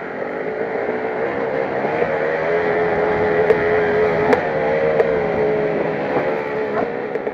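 KTM 250 motocross bike engine heard from the rider's helmet, running at a fairly steady high pitch that rises and falls a little. A few sharp ticks come in the middle.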